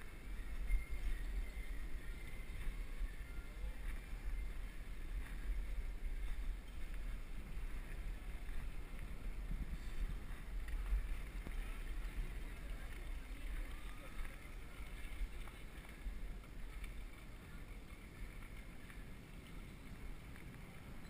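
Steady low rumble and wind noise on a head-mounted camera's microphone as a bicycle rolls over cobblestones.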